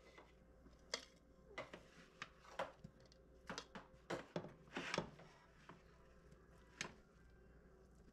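Faint, scattered clicks and light knocks of a kitchen utensil against a bowl and dish, about a dozen in the first seven seconds, as cooked fish fillets are moved into a bowl.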